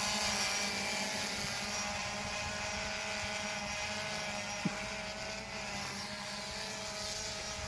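DJI Phantom 3 quadcopter's propellers giving a steady, even hum as it climbs, growing slightly fainter as it gains height.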